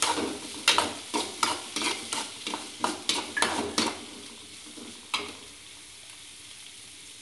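A metal spoon scrapes and knocks against a metal kadai, stirring onions and green chilli as they fry in ghee, over a steady sizzle. The strokes come several times a second for about four seconds, one more follows about five seconds in, and then only the sizzle is left.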